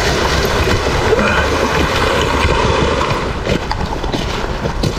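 A small woodland brook running steadily over rocks, close by. A few soft rustles come in near the end.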